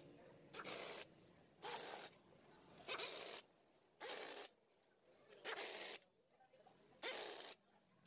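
Impact driver with a Phillips bit run in six short bursts of about half a second each, tightening the crankcase screws of a Yamaha RS100 two-stroke engine.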